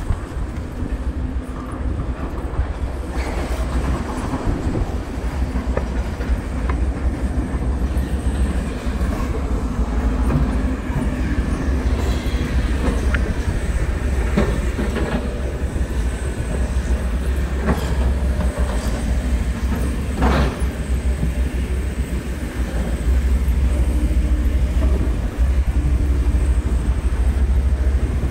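Train running past on nearby rails: a steady low rumble with scattered sharp clicks, louder again near the end.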